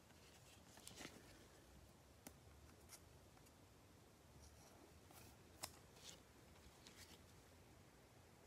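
Near silence, with a few faint clicks and rustles of trading cards being handled and slid against one another.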